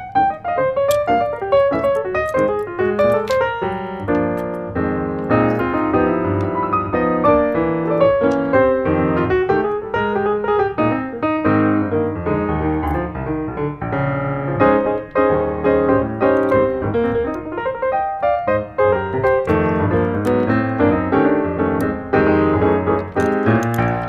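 Background piano music, a busy melody with bass notes.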